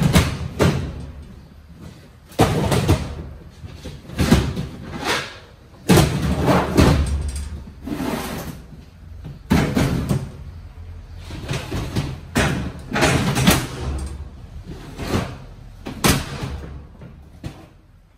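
Lidded plastic stacking totes being lifted, slid and set down on top of one another: a long run of irregular thumps and knocks, a dozen or more, each ringing briefly off the metal walls of the trailer.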